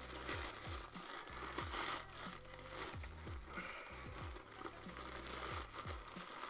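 Packaging being crinkled and torn by hand as a parcel is forced open, with faint background music's falling bass beat underneath.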